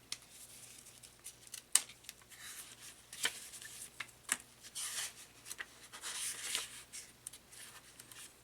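Paper packaging and printed leaflets being handled and opened by hand: scattered light clicks and taps among crinkly rustling swishes, several of them about a second apart.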